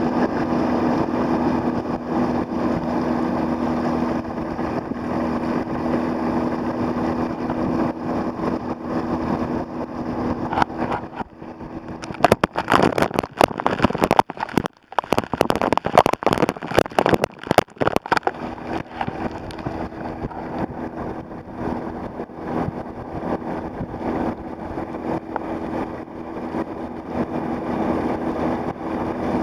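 Water rushing past a kayak towed at speed, over the steady hum of the towing Gheenoe's outboard motor. From about 11 to 19 seconds in, spray splashes over the camera in choppy, irregular bursts that break up the sound, before the steady rush and hum return.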